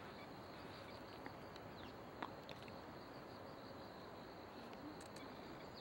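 Faint insect chorus: a steady high-pitched chirring, with a short faint click a little over two seconds in.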